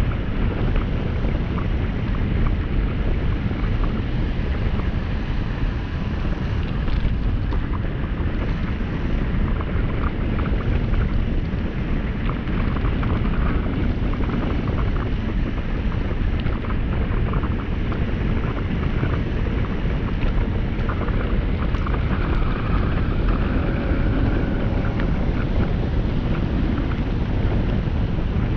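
Steady wind buffeting the microphone over the rumble of wheels rolling down an asphalt road at speed.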